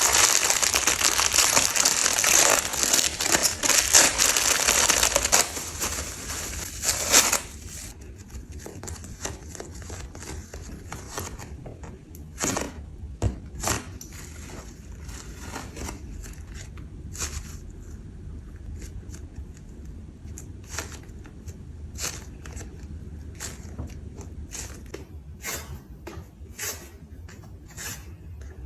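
Plastic packaging of a squishy toy being crinkled and torn open: loud, dense crackling for about the first seven seconds, then quieter scattered taps and light crinkles.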